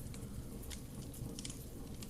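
Wood fire burning in a fireplace: a steady low rush of flame with a couple of sharp crackles from the burning wood.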